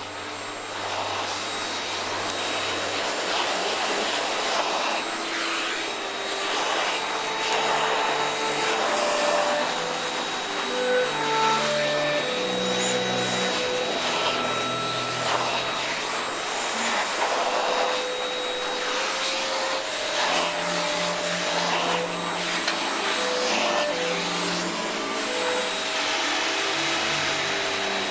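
Household vacuum cleaner running steadily, a continuous rushing noise with a thin high motor whine over it.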